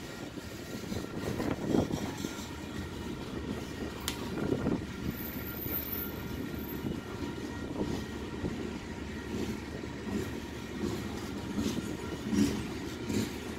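Freight train of open-top coal cars rolling past: a steady rumble of wheels on rail with irregular clunks and a sharp click about four seconds in.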